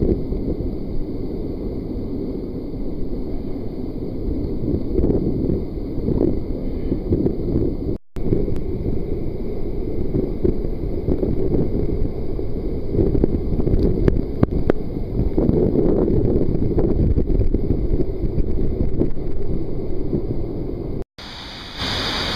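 Roar of a mountain waterfall heard close up, a steady deep rumble of falling water mixed with spray and wind on the microphone. The sound drops out briefly about a third of the way in and again near the end, after which the water sounds brighter and hissier.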